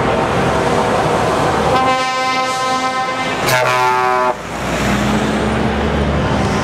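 Volvo tractor-trailer's horn sounding one long blast of about two and a half seconds as the truck passes close, its pitch dropping partway through, over the running diesel engine and road noise.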